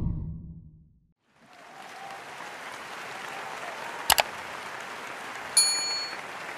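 Sound effects of a subscribe-button end-screen animation: a low boom at the start that dies away within a second, then a steady rushing noise, a quick double mouse click about four seconds in, and a bright bell-like notification ding about a second and a half later.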